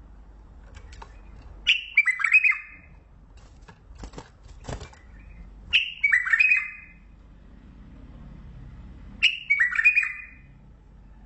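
Bulbul singing: three short, bubbly phrases of quick falling notes, each about a second long and a few seconds apart, with a few faint clicks between the first two.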